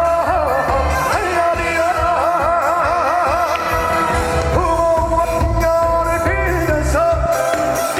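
Korean trot song performed live: a male singer holds long notes with a wavering vibrato over a full band backing with a steady bass beat.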